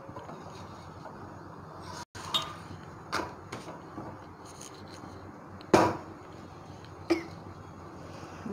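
A few sharp knocks and clicks of a spatula and utensils against a flat iron griddle, about four in all, the loudest about two-thirds of the way through, over a steady low background noise.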